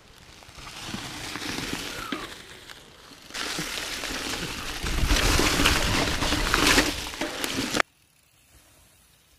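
Mountain bike rolling fast over dry fallen leaves: a steady crackling rush of tyres through leaf litter mixed with wind and bike rattle, heavy at times, then cutting off suddenly near the end to near quiet.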